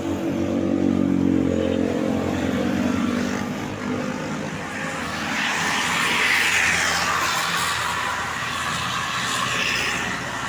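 Road traffic with a bus going by. A heavy engine's steady hum fades over the first few seconds. Then a rushing noise swells, loudest around six seconds in, and eases off.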